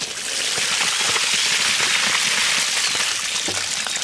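Water poured from a pot into a woven bamboo basket, splashing and draining through the weave in a steady rush, with a few small knocks as the climbing perch poured in with it land in the basket.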